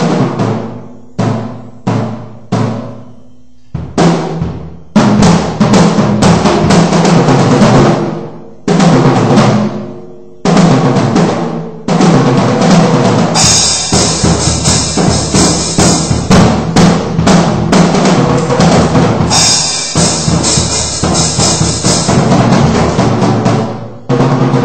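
Acoustic drum kit being played loosely to test its sound. First come a few single drum hits that ring out, then busier playing on bass drum, snare and toms, with two long stretches of crashing cymbals.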